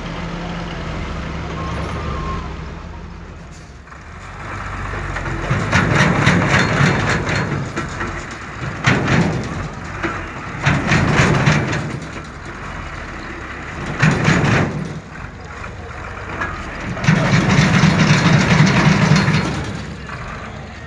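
Diesel dump truck engine idling, then revving hard in five surges as the truck labours to pull itself out of mud.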